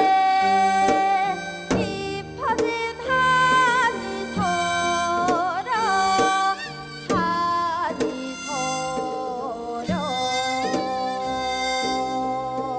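Korean traditional-music ensemble playing an instrumental passage: a melody of held notes with wavering vibrato and pitch bends over sustained chords, with a few light percussive strikes.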